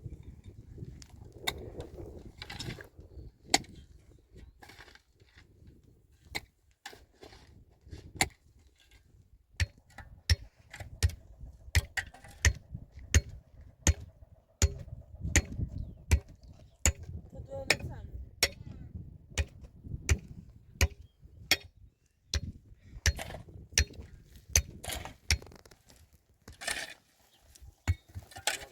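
A series of sharp knocks or taps, scattered at first and then coming about once or twice a second, with a faint steady tone under them for several seconds in the middle.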